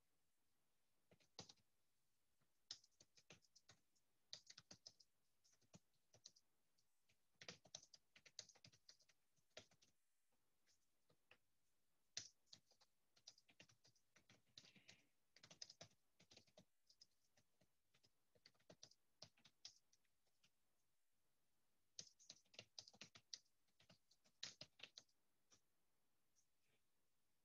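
Faint typing on a computer keyboard: several bursts of quick key clicks separated by short pauses.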